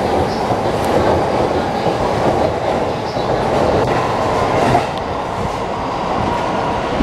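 E233-1000 series electric train pulling out of the station and running past close by on the rails. The noise eases a little about five seconds in as the last car goes by.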